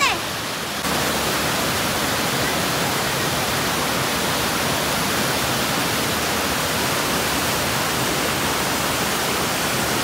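Steady rush of flowing water, growing a little louder under a second in and then holding even.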